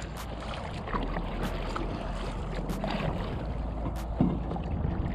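Kayak paddle strokes, the blades splashing into the water about once a second, over water lapping at the plastic hull. Wind rumbles steadily on the microphone.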